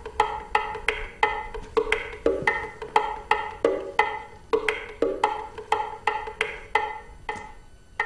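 Percussive music: a steady, even pattern of short knocked notes with a wood-block-like attack and a brief pitched ring, about three a second, easing off briefly near the end.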